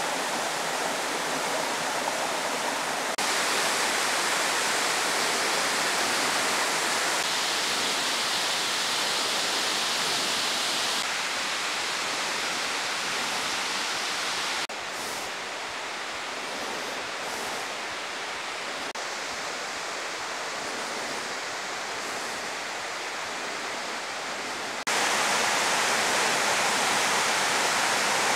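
Steady rushing of a forest creek and waterfall, a pitchless hiss that shifts suddenly in loudness and tone several times.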